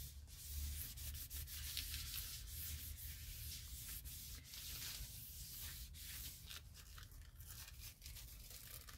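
Faint, uneven rubbing and brushing of a wad of tissue over tissue paper laid on a stencil and gel printing plate, burnishing it down to lift the paint into a print.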